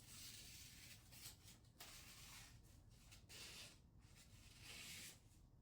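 Faint papery hiss of a freshly sharpened knife edge slicing magazine paper in a few short strokes, a test of sharpness; the edge is cutting cleanly.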